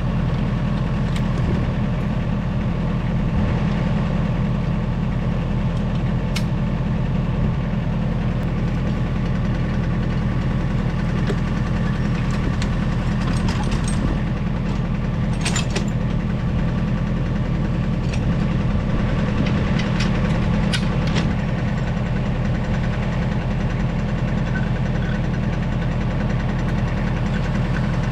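Tractor engine running steadily at a constant, even speed, with a few brief sharp clicks over it partway through.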